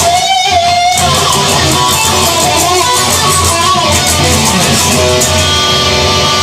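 Instrumental music: an electric guitar playing over a steady bass and drum beat, with a sliding guitar note about a second in.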